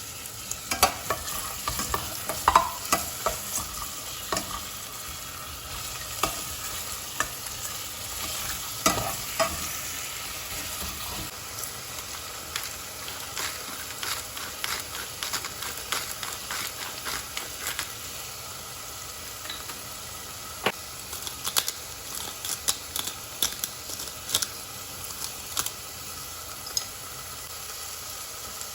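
A utensil stirring and scraping in a pan over a steady faint sizzle, with many sharp clicks of the utensil against the pan.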